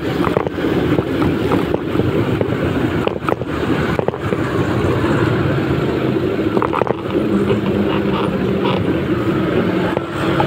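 A small motorcycle engine running at road speed while riding, with wind rushing over the microphone and road noise.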